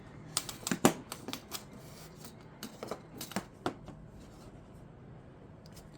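Scattered clicks and taps of handling the camera's pigtail cable while it is measured, irregular and clustered in the first four seconds.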